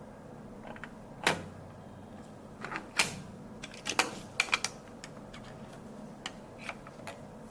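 Irregular clicks and knocks of computer parts being handled and fitted during a PC build, with a quick cluster of clicks about halfway through.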